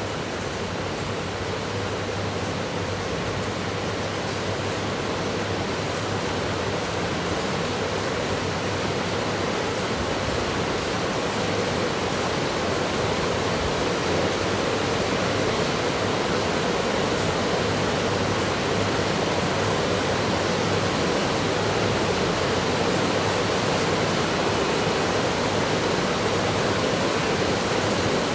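A steady rushing noise, like running water or static, growing slightly louder over the stretch.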